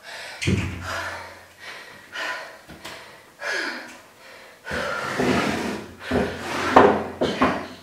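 Heavy breathing and gasps after exercise, with a dull knock about half a second in as a pair of dumbbells is set down on the exercise mat.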